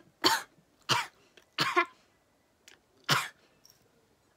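A woman coughing in a fit of short, harsh coughs, four of them over about three seconds.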